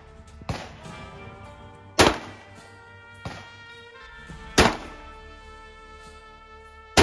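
Tristar Arms Tactical Compact bullpup shotgun firing, a loud shot every two and a half seconds or so, each with a short echo, and a softer clack between shots. Background music plays throughout.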